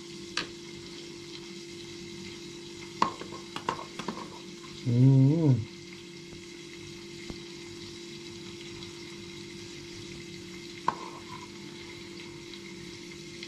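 A spoon clicks a few times against a small plastic cup as garlic is spooned onto yogurt. Underneath is the steady sizzle of oil heating in a pan for the topping. A short voiced hum is heard about five seconds in.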